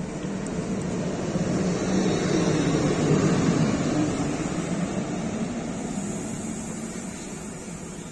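InRail electric locomotive running light past the platform, with no wagons: a steady hum over the rumble of its wheels on the rails. The sound swells as it passes close, loudest about three seconds in, then fades as it draws away.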